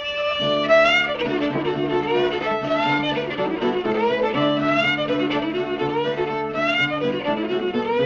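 Fiddle playing a lively old-time tune, with many quick notes sliding upward over steady held lower notes.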